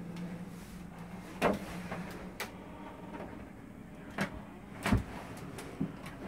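A handful of short knocks and clicks, about five in all, the loudest about five seconds in, over a faint steady low hum. They are the bumps and steps of someone moving through a yacht's wooden-floored cabin.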